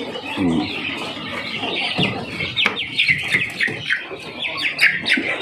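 Young chickens peeping and clucking: a quick run of short, falling high chirps through the middle and latter part, with a low call near the start and a couple of knocks around the two-second mark.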